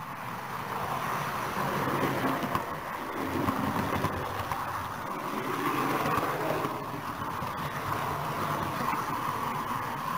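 A model railway train running along the track, heard from a small camera riding on it: a steady whir of wheels and motor on the rails with a few faint clicks, growing louder over the first couple of seconds.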